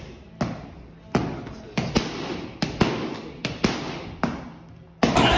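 Boxing gloves smacking against focus mitts in a string of sharp punches, about ten hits with some in quick pairs, each with a short echo. A louder, noisier burst of sound begins near the end.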